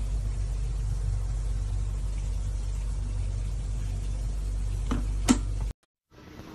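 Steady low hum, with two sharp clicks about five seconds in; the sound then cuts off abruptly.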